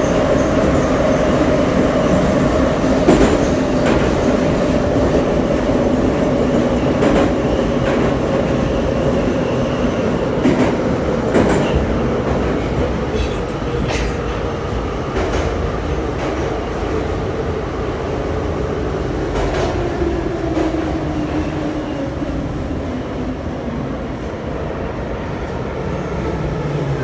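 Interior running noise of an Em-series metro car (81-501/502/503) slowing into a station: the motor whine falls steadily in pitch as the train decelerates. Wheels click over rail joints, mostly in the first half.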